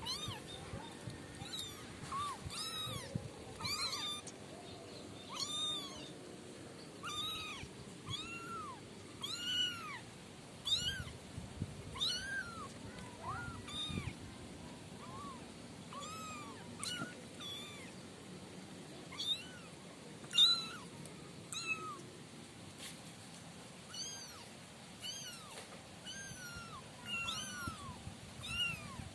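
A litter of kittens mewing: many short, high-pitched mews that rise and fall, from several voices, coming about once or twice a second.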